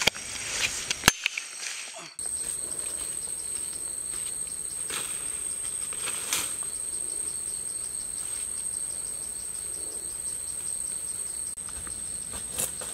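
A steady chorus of forest insects begins suddenly about two seconds in: a high, unbroken drone over a fast, even pulsing trill. A few crackles of footsteps in dry leaf litter come over it, most of them near the end.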